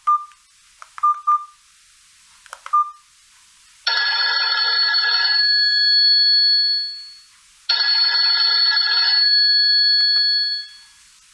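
Maxvi B10 mobile phone: a few clicks with short beeps, then a preset bell-like ringtone from its speaker, played twice about four seconds apart. Each ring opens with a rapid trill and fades on held ringing tones.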